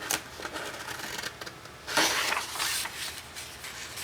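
Scissors cutting through a folded sheet of paper along the crease, with dry paper rustling. The loudest stretch of cutting comes about two seconds in.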